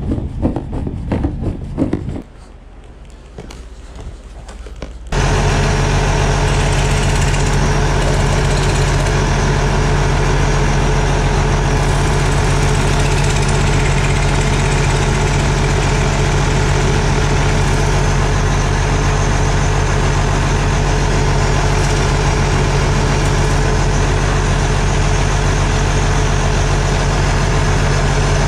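Footsteps on snow, then from about five seconds in a tractor's diesel engine idling steadily, heard close up at the open engine bay.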